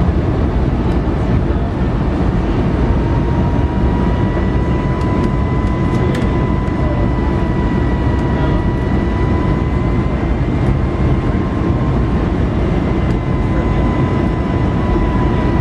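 Airbus A320 cabin noise on approach: a steady, loud rush of engines and airflow, with a thin engine whine coming in about two seconds in and holding, drifting slightly in pitch.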